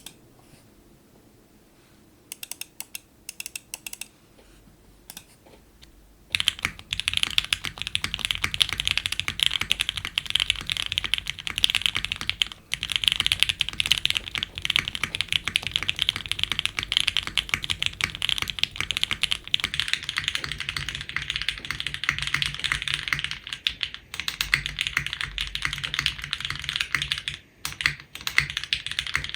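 Typing on an OG F1-8X mechanical keyboard with lubed, broken-in Gateron Oil King linear switches on a full FR4 plate, gasket-mounted, with GMK keycaps. A few scattered keystrokes come first, then fast continuous typing from about six seconds in, with a few brief pauses.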